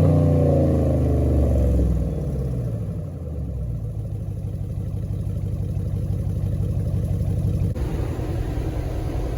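5.7 Hemi V8 fitted with aftermarket shorty headers, its revs falling back from a blip over the first two seconds and then idling steadily.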